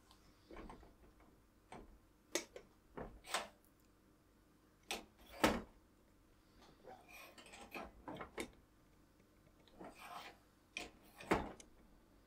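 Aluminium Bialetti moka pot being handled on a gas stove's metal burner grate: scattered clicks and light metal knocks, the two loudest about five and a half and eleven seconds in.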